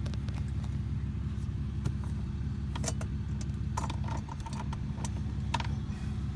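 Plastic dashboard trim and glove-box parts being handled and snapped into place: several short clicks and rattles, the clearest about halfway through. Under them, a steady low hum.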